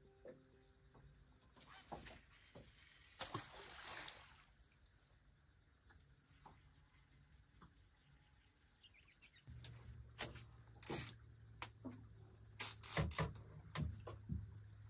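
Crickets trilling steadily in one unbroken high-pitched note. In the last few seconds a low hum sets in, with several sharp knocks and clicks.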